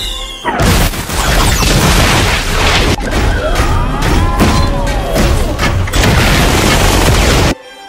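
Layered action-film sound effects: repeated booms and crashes over music, with a few sweeping tones in the middle. It cuts off suddenly near the end.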